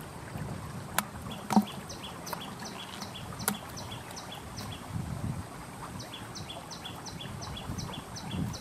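A high, regular chirping call, about three chirps a second, in two runs with a pause about halfway, over a low wind rumble. A few sharp clicks or slaps about a second in, again half a second later and near the middle, as a live eel is handled over a plastic bucket.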